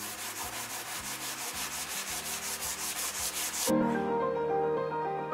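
Hand sanding of a white-painted fir board with 120-grit sandpaper on a block, in rapid, even back-and-forth strokes, scuffing back the paint to show the wood grain. The sanding stops about two-thirds of the way in and piano music takes over.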